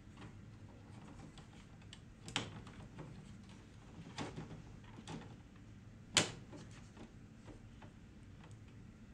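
Plastic clicks and handling as ink cartridges are pressed into the carriage of an HP DeskJet Ink Advantage 3788 printer: a few sharp clicks spread over several seconds, the loudest about six seconds in.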